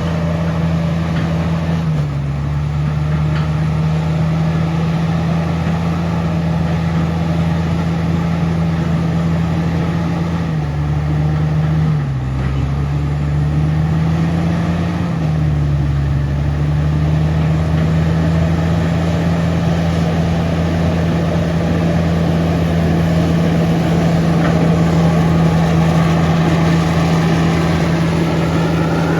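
Komatsu D68ESS bulldozer's diesel engine running steadily, its pitch dipping about two seconds in and twice more in the middle, around 11–12 and 15 seconds in.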